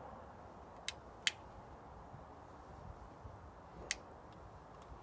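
A lighter clicking while a tobacco pipe is being lit: two sharp clicks close together about a second in, then one more near the four-second mark. A low rumble of wind on the microphone runs underneath.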